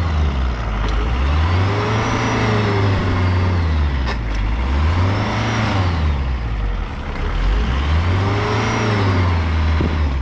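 Żuk van's engine revving up and dropping back in three slow surges, each rise and fall taking about three seconds.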